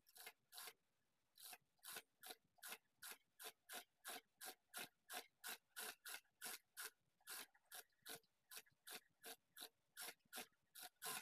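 Faint, even ticking of an industrial sewing machine stitching slowly, about three to four stitches a second, sewing down a folded fabric edge.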